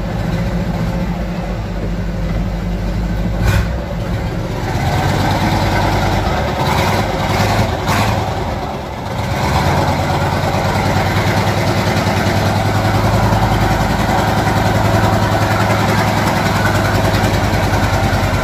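UD Nissan V8 diesel truck engine running, at first at a steady idle, then working harder and louder from about four seconds in as the bare chassis moves off. A few sharp clicks come between about three and eight seconds in.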